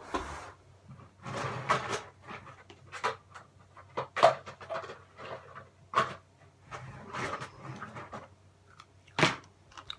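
A girl breathing hard and gasping in short, irregular bursts, a reaction to the very tangy lemon sherbet.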